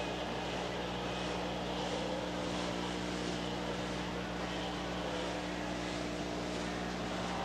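Flat-track racing motorcycles running laps in a race, a steady engine drone.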